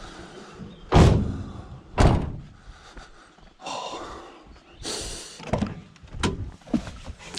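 A vehicle door slams shut twice, heavy thuds about a second apart, followed by some rustling and a few light clicks.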